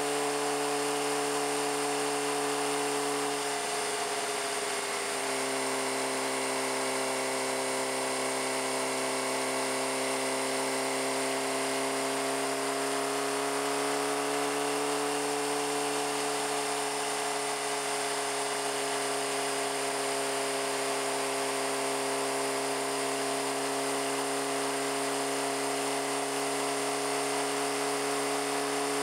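Suzuki GSX-R600's inline-four engine running at a steady highway cruise: a high buzzing whine that eases slightly in pitch about four seconds in, then holds nearly constant.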